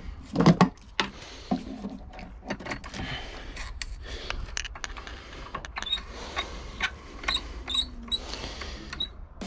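Clicks and knocks of a garden faucet and a plastic hose connector being handled and fitted onto the spout, with one louder knock about half a second in.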